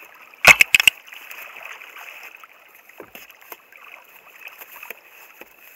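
Water lapping and rushing against a kayak hull, with a quick cluster of four or five sharp knocks about half a second in.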